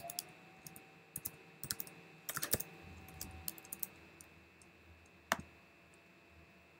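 Typing on a computer keyboard: a quick run of light keystrokes over the first few seconds, then a single sharper click about five seconds in.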